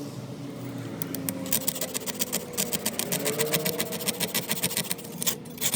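Rapid, even mechanical clicking, about nine clicks a second, over a low steady hum; it starts about a second in and stops near the end.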